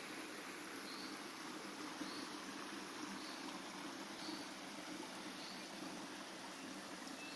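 Steady forest ambience: an even background hiss, with a faint high chirp repeating about once a second.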